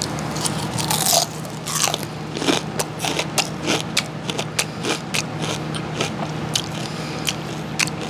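Close-up crunching and chewing of crispy cooked frog: a rapid run of sharp crunches, several a second.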